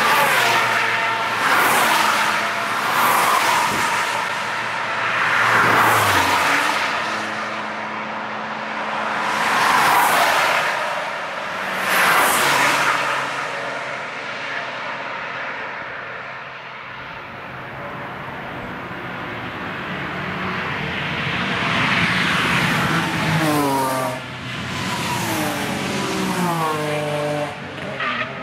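A string of cars driving past at speed one after another, each engine note swelling and fading as it passes. Near the end an engine's pitch shifts up and down in steps, as with gear changes.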